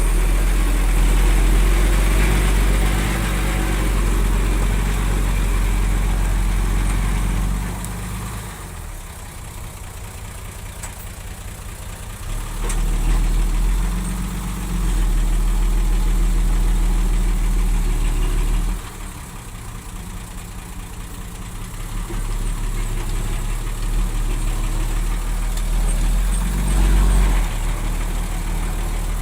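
Bulldozer's diesel engine working under changing load. It runs hard for the first eight seconds or so, eases back, picks up again from about twelve to nineteen seconds, eases off once more, then builds up again near the end.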